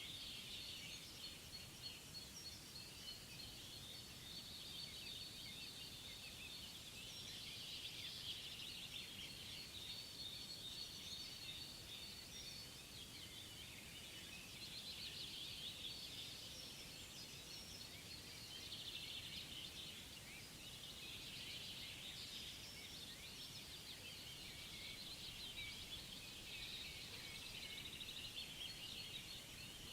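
Faint outdoor nature ambience: a dense, high-pitched chirping chorus that swells and fades every few seconds over a low, steady hiss.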